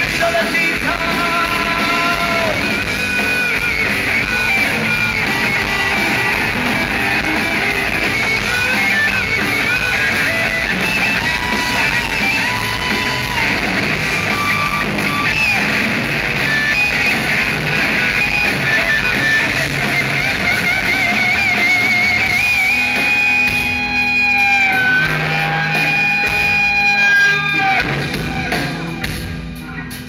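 Live rock band playing a loud instrumental passage: electric guitars with a sustained, wavering high lead line over bass and drums. The music drops back near the end.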